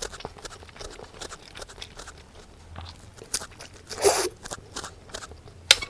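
Close-up chewing and crunching of food, with many small crisp crunches, a louder crunch about four seconds in and a sharp click near the end.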